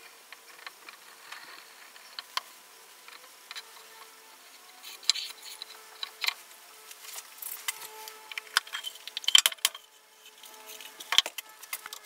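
Scattered light clicks and knocks of wooden box parts and a plastic glue bottle being handled on a wooden workbench, growing busier and sharper in the second half as a one-handed bar clamp is picked up and worked.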